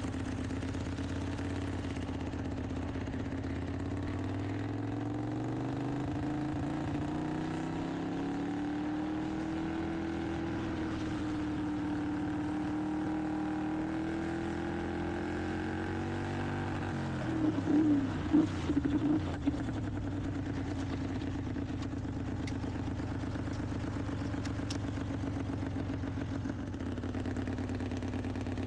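Racing lawnmower engine running: its pitch rises as it is revved up and held for several seconds, then drops back with a short run of loud rough bursts about two-thirds of the way in, before settling to a steady idle.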